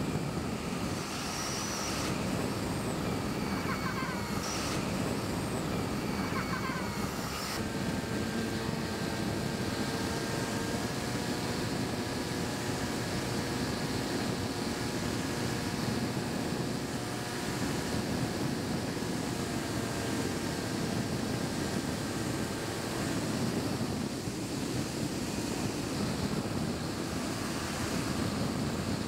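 Air rushing over the onboard camera of an FPV flying wing in flight, with its electric motor and propeller whining at a steady pitch from about eight seconds in until about 23 s. In the first seven seconds, brief bursts of laughter come through the wind.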